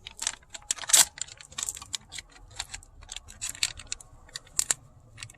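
Small hard parts being handled, giving a quick run of irregular clicks and light rattles; the loudest click comes about a second in.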